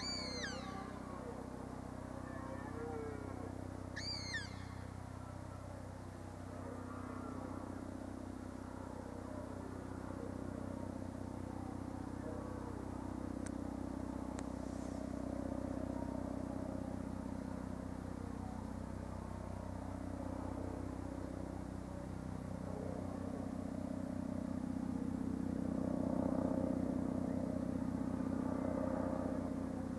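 BK117 helicopter's rotor and turbines droning steadily in the distance, growing gradually louder toward the end as it comes closer.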